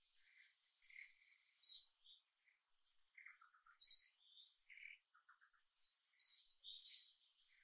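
Birds chirping: a loud, high, short chirp comes four times, about two seconds apart and then twice close together near the end, with softer, lower chirps and quick little runs of notes in between.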